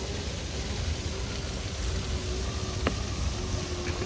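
Steady rushing hiss with a low rumble and a faint steady hum underneath, broken by one sharp click about three seconds in.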